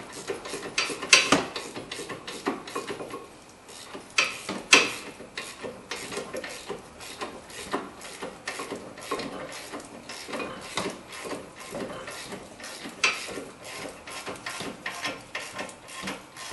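Hand ratchet clicking in runs of quick clicks as it tightens the bolts of a front brake caliper mounting bracket, with two louder metallic knocks in the first five seconds.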